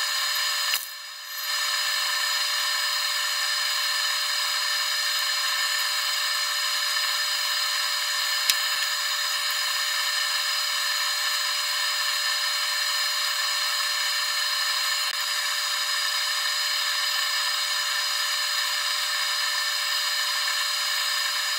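Aerosol spray can of Krylon primer hissing in one long, steady spray, with a brief let-off about a second in.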